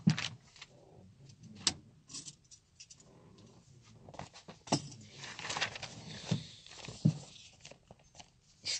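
Scattered light clicks, knocks and rustles of a person handling things and shifting about. The sharpest click comes right at the start, and a longer rustle comes a little past the middle.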